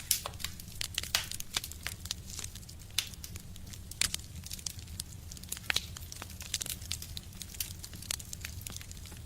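Wood fire burning in a stove: steady crackling with irregular sharp pops and snaps over a low rumble, a few louder pops standing out.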